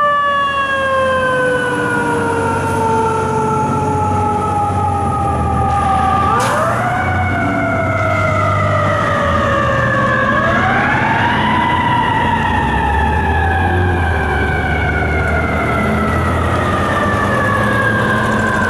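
FDNY tower ladder fire truck's siren wailing as the truck drives off. The pitch sweeps up quickly and then sinks slowly over several seconds, rising again about six seconds in and about ten seconds in, with a low rumble underneath.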